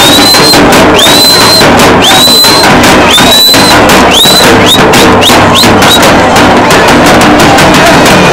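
Ingoma dance drumming: a bass drum beats while a shrill whistle is blown again and again. Each blast slides up and holds, about one a second, then the blasts come quicker and shorter and stop about six seconds in.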